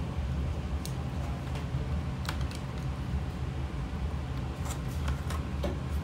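A few light clicks and taps as a replacement sensor is fitted into a Rheem water heater, over a steady low hum.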